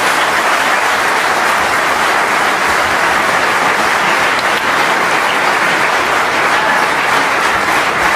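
Large audience in an arena applauding steadily, for a snooker match just won.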